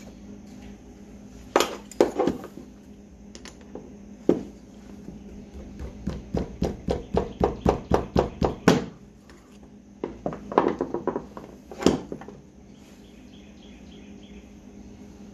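Small metal carburetor parts and hand tools clicking and clinking on a workbench as the carburetor is taken apart, with a quick run of even clicks, about five a second, midway. A faint steady hum runs underneath.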